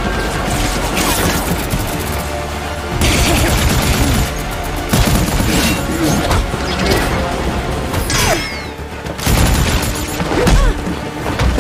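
Animated fight-scene soundtrack: dramatic music under a dense mix of booms, impacts and rapid gunfire-like bursts, with several loud hits.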